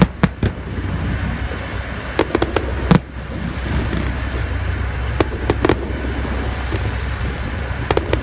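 Distant aerial fireworks bursting: scattered sharp bangs in small clusters, the loudest single bang about three seconds in, over a steady low rumble.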